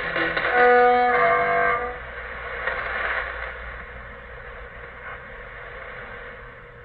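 Shortwave AM broadcast heard through a receiver's speaker: a short musical jingle of a few held notes in the first two seconds, then a steady hiss of static on the quiet carrier, slowly fading.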